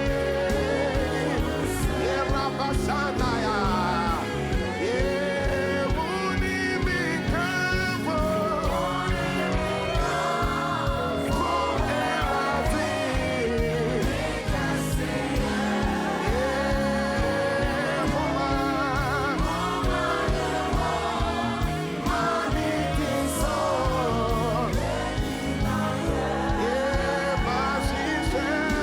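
Gospel worship music: voices singing sustained, gliding lines over a continuous instrumental backing.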